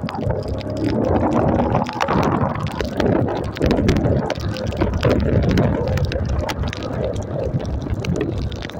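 Wind buffeting the microphone on a moving motorcycle in heavy rain, over the low rumble of the engine and tyres on the wet road, with many short taps of raindrops hitting.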